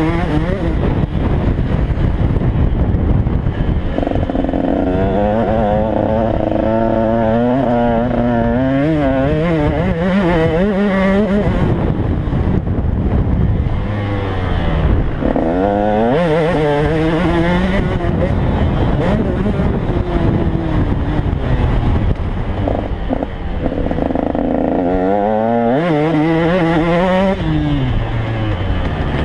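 KTM 150 XC two-stroke dirt bike engine revving hard and falling back again and again as the throttle is worked through the corners and straights. The pitch wavers rapidly at times and drops away in a falling glide twice, about halfway and near the end, over a constant rush of wind and track noise.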